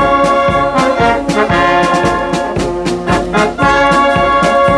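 Wind band playing live: trumpets, clarinets, saxophones and a tuba hold chords that change every second or so, over a steady beat of sharp percussive hits.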